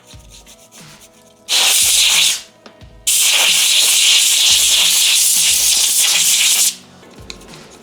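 Compressed air blowing dust off a graphics card: a hissing blast of about a second, then a longer blast of about three and a half seconds, both cutting off sharply.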